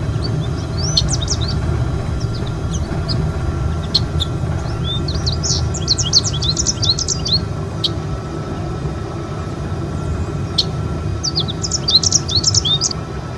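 Small birds chirping and twittering in quick bursts, densest in two spells midway and near the end, over a steady low rumble.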